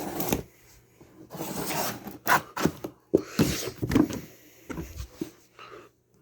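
A cardboard shipping box being handled and opened: cardboard rubbing and scraping, with several sharp knocks.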